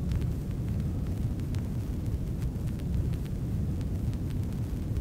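A steady low rumbling noise with scattered faint clicks, no music audible.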